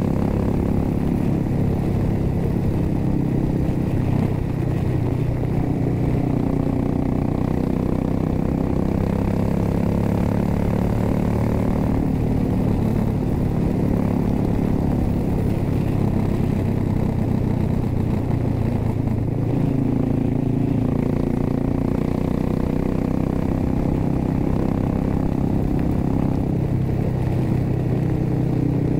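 2006 Suzuki S40 Boulevard's 650cc air-cooled single-cylinder engine and exhaust running steadily at cruising speed on the road.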